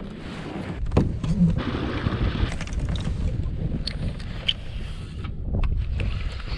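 Wind rumbling on the microphone with a steady hiss, a sharp knock about a second in and a few light clicks from the kayak and fishing tackle.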